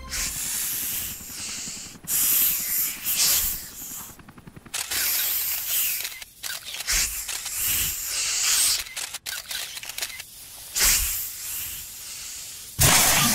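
Cartoon snakes talking in hisses: a run of hissing phrases with short pauses between them, paced like speech.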